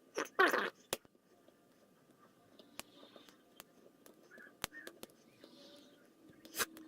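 Sparse, sharp clicks of a lock pick working the pins inside a WCP Banshee lock cylinder during picking, about five spread over several seconds. A brief muttered word comes just at the start.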